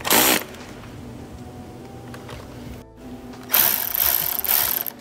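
Ratchet wrench clicking as it tightens a 10 mm hose clamp on a turbo charge pipe. A short burst comes right at the start, and a longer run of rapid, even clicks follows over the last second and a half.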